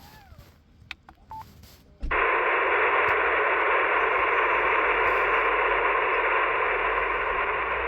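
Handheld-style VHF FM transceiver speaker putting out a steady rush of receiver static that cuts in suddenly about two seconds in, as the squelch opens with no readable station on frequency.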